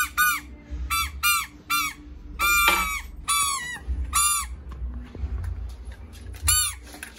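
About a dozen short honking squeaks from a small handheld noisemaker, sounded at the dogs in quick bursts. Each squeak rises and falls in pitch, and a longer doubled one comes near the middle, over a low handling rumble.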